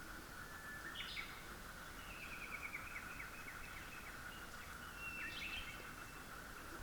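Faint, thin, drawn-out whistles of a White's thrush, a lower one early on and a higher one about five seconds in, amid other birdsong that includes a descending series of chirps about two seconds in. A steady high hum lies underneath throughout.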